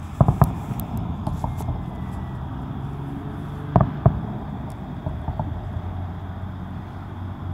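Aerial firework shells bursting at a distance: a quick cluster of sharp bangs at the start and two more about four seconds in, over a steady low background rumble.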